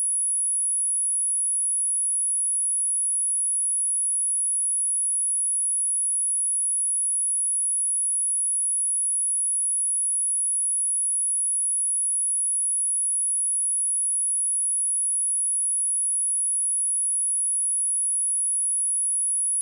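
A steady, high-pitched 10256 Hz sine-wave test tone, one pure unbroken pitch at constant level.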